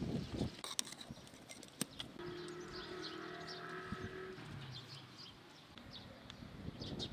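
Outdoor village ambience with small birds chirping. A few sharp clinks and knocks sound in the first two seconds, as the metal pot is lifted away from the enamel kettle. A steady held tone sounds for about two seconds in the middle.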